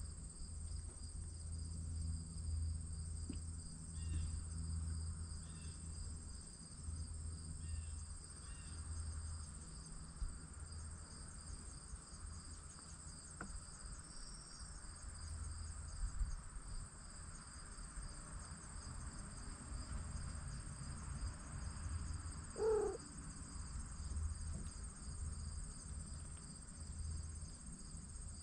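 Steady high insect trilling over a low rumble, with a few faint chirps early on. About three-quarters of the way through comes one short call that falls in pitch.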